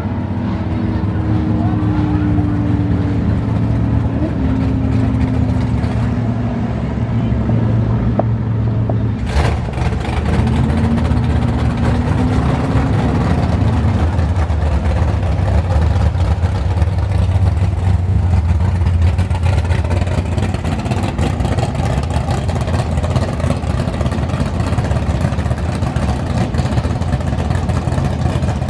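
Several muscle-car engines idle and rumble loudly. One car's engine note falls over the first few seconds, and another revs up around ten seconds in. There is a sharp knock about nine seconds in.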